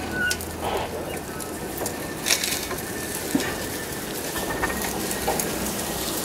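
Long-stored rusty passenger coaches rolling slowly on the rails: a steady crackling, grinding noise from the wheels and running gear, with scattered clicks and knocks. One wheel is apparently not turning, first taken for a frozen wheel and then found to have its brake on.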